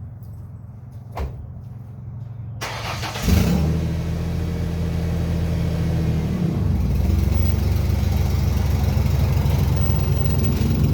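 Freshly rebuilt GM 2.2 engine starting: after a click it is cranked and catches about three seconds in, then runs steadily, settling into a lower, even idle a few seconds later.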